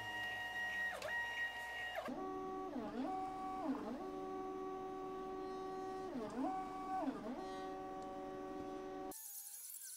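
Cutting plotter's drive motors whining as the carriage, carrying a felt-tip marker instead of a blade, draws lines on the sheet. The whine holds a steady pitch during each straight move and dips down and back up at each change of direction; about two seconds in it drops to a lower note, and near the end it gives way abruptly to a fainter, higher hum.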